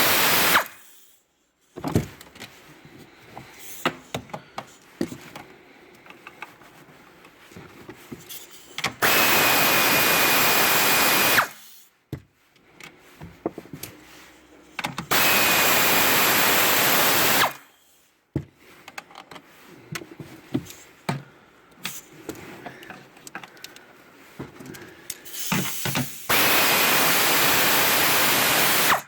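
Power drill-driver spinning out the tail light's 8 mm bolts, running in steady bursts of two to three seconds each: one ending as it begins, then three more. Quieter clicks and handling knocks come between the runs.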